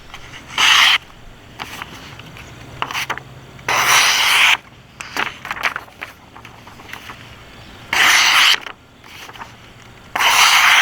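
Sharp Hira Zukuri balisong blade slicing in four short scraping strokes, each about half a second long and a few seconds apart, with faint ticks and clicks between them.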